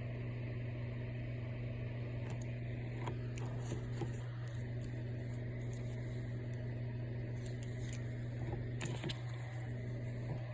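A steady low hum with a few light clicks and taps of small things being handled, the sharpest near the end.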